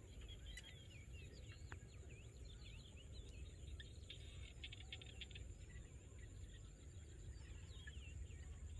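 Faint outdoor ambience of many small birds chirping in quick short calls, with a rapid trill about halfway through. Under it runs a steady high-pitched insect drone and a low rumble.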